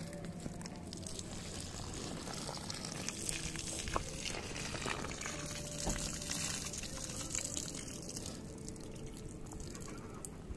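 Water poured from a plastic can in a steady trickle, splashing onto dry soil around a sapling.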